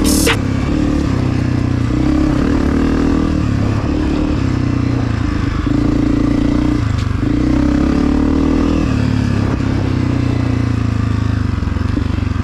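Honda CRF250F's single-cylinder four-stroke engine with a Pro Circuit exhaust, ridden on a dirt track. Its pitch climbs and drops in steps every second or two as the rider works the throttle and shifts.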